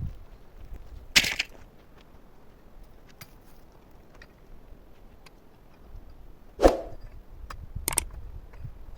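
Scattered clicks and knocks of wood and stone being handled, with a louder brief scrape about a second in and a heavier knock near seven seconds.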